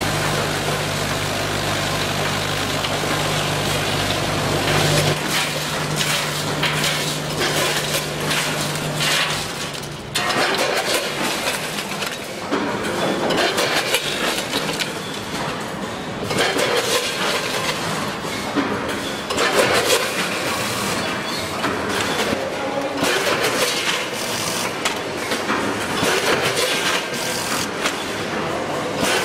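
Automatic chips packing machine running: crisps clattering and rattling through the stainless steel hoppers and buckets of a multihead weigher. A steady low machine hum drops away about five seconds in.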